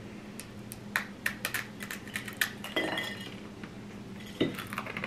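Irregular sharp crunches and clicks of a dry, uncooked Maruchan instant ramen block being bitten and chewed, with forks clinking on plates. The clicks come thickest in the first two and a half seconds and again near the end.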